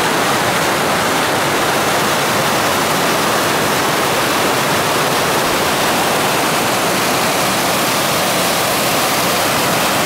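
Waterfall rushing over rocks close by: a loud, steady roar of churning white water.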